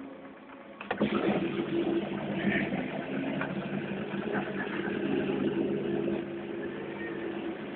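Old Gorenje dishwasher during its Daily Cycle: its motor kicks in suddenly about a second in and keeps running with a steady hum and a rushing noise.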